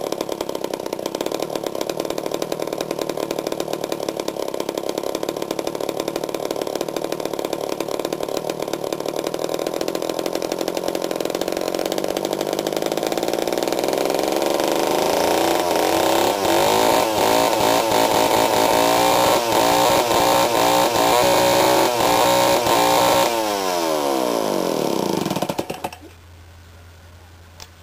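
Homelite Zip two-stroke chainsaw engine running, its revs climbing about halfway through and held high, then dropping in a falling whine until the engine dies near the end. The saw would not idle properly on its own, which the owner puts down to probable carburettor issues.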